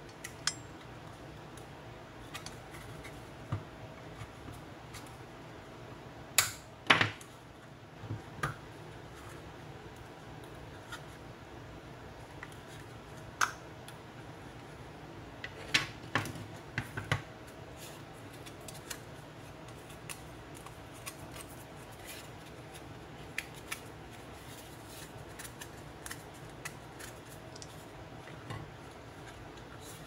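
Sealed plastic AC adapter case being pried apart with a plastic pry tool: scattered sharp snaps and clicks as the sealed seam gives way, the two loudest about six and seven seconds in, followed by lighter clicks and taps of the plastic shell and circuit board being handled, over a faint steady hum.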